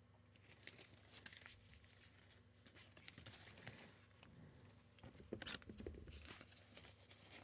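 Faint rustling and small scattered clicks of softbox diffuser fabric being handled, a little louder for a moment about five to six seconds in.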